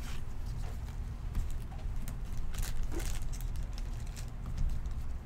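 Trading cards and packs being handled on a mat: scattered small clicks, taps and rustles over a low steady hum.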